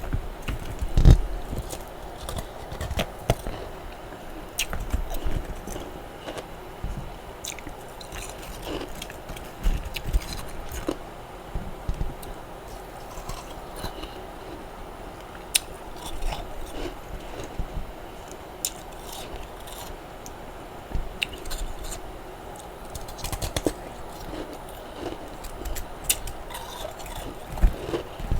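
A person chewing and crunching mouthfuls of freezer frost ice, a run of irregular crisp crunches and bites.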